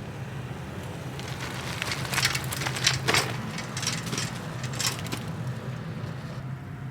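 Wind buffeting the microphone during a bicycle ride: a steady low rumble, with a run of crackling, crunching noises between about two and five seconds in.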